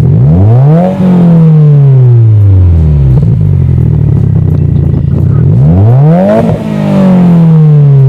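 Subaru WRX's turbocharged 2.0-litre flat-four exhaust, free-revved twice from idle: each time the pitch climbs quickly for under a second, then falls slowly back to a steady idle.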